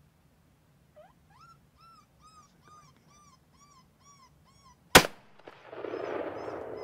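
A high squealing call repeats about three times a second, a dozen times, then a single gunshot cracks out about five seconds in, the loudest sound here. A rough, noisy sound rises just after the shot and holds.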